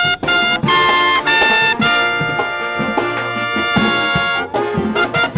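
Marching band of trumpets, saxophones and sousaphones playing a lively tune, with the trumpets right up at the microphone. Short punchy notes give way to a held chord about two seconds in, then the short notes return.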